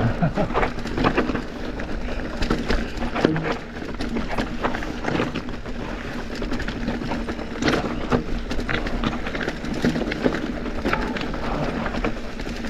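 A 100 mm-travel cross-country mountain bike rolling down a steep rocky descent: a steady, irregular clatter of knocks and rattles from the bike and its tyres striking rock, over a low rumble.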